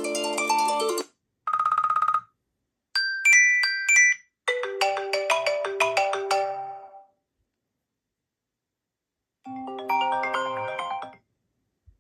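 iPhone 14 Pro Max playing iOS 17 ringtones, five short snippets one after another with silent gaps between. Each is a brief run of chime-like notes that stops abruptly after one to two seconds. The second is a single tone pulsing rapidly.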